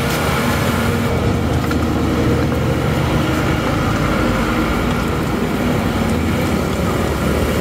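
Steady low rumble of street traffic and engines, with no clear single event standing out.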